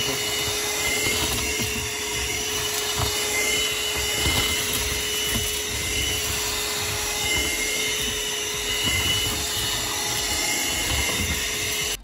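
RNG Eko Green RNG-2001 150-watt handheld car vacuum cleaner running steadily with a constant hum and a higher whine, its narrow nozzle sucking loose soil and grit off a rubber floor mat.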